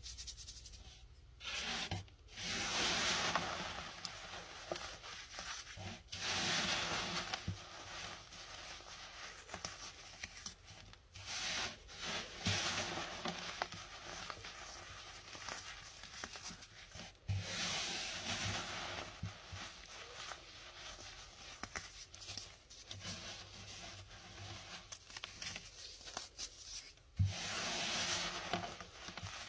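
Hands crushing crunchy clumps of baking soda and sifting the powder through the fingers: a crisp crunching and rubbing hiss that comes in several louder bouts, with softer sifting and a few light knocks between them.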